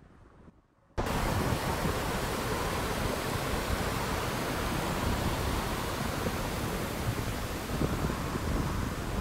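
Swollen floodwater rushing and churning, a steady loud rushing noise that cuts in suddenly about a second in.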